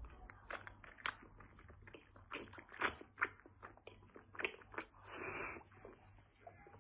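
Close-up eating sounds: irregular wet chewing and biting with small crunches and mouth clicks, and a longer breathy sound about five seconds in.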